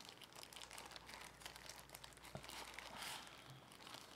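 Thin white wrapping crinkling and rustling as it is pulled off a drone battery charging hub, with small clicks and a louder rustle about three seconds in.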